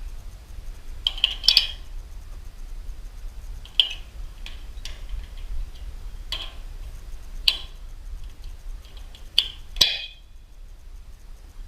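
Metal wrench clinking against the nuts on a garage door opener's chain-tension bolt: eight or so sharp metallic clinks at irregular intervals, over a low steady hum.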